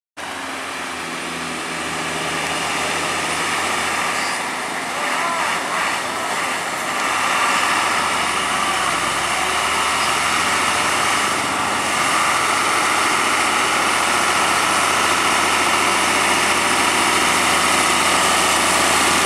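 Hino 500 dump truck's diesel engine pulling up a steep hairpin climb under load, growing steadily louder as the truck approaches.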